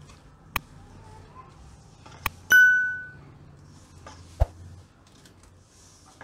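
Subscribe-button animation sound effect: a few sharp mouse clicks and one bright bell ding, about two and a half seconds in, that rings out for about half a second. Under it is a faint rustle of hands mixing crumbly dough in a steel bowl.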